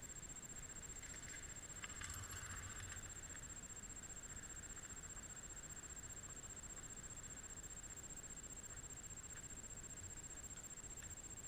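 Faint, muffled GoPro noise: a steady hiss with a thin high whine, and a brief rustle about two seconds in.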